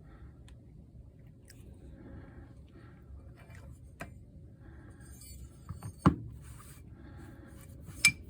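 Small clicks, scrapes and rustles of tools and parts being handled on a phone-repair bench, with two sharp knocks, the louder one about six seconds in and another near the end.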